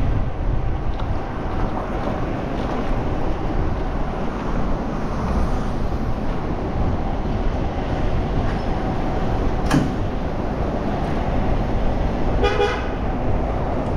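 Street traffic and wind noise, a steady low rumble, heard from a bicycle riding in a city bike lane, with one sharp click about ten seconds in and a short horn toot near the end.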